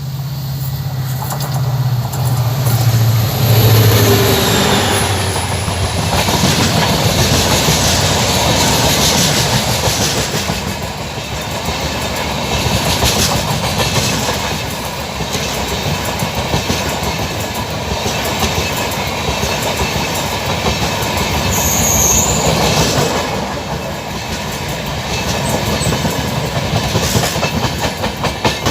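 A WDP 4D diesel locomotive passing at speed, the low drone of its EMD two-stroke engine fading within the first few seconds. Then express passenger coaches roll by with a steady rumble, their wheels clattering over rail joints.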